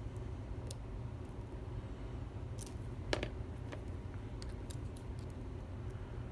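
Small, scattered clicks of a lock pick working the pins inside a challenge lock, about a dozen spread over several seconds with one sharper click about three seconds in, over a steady low hum.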